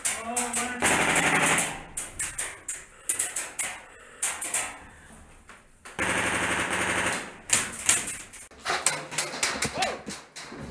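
Airsoft rifles firing: two full-auto bursts of about a second each, about a second in and about six seconds in, with quick runs of sharp single shots in between.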